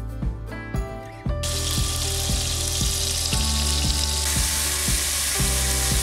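Butter frying in the pot of a Moulinex Cookeo multicooker: a steady sizzle that starts about a second and a half in, over background music with a steady beat.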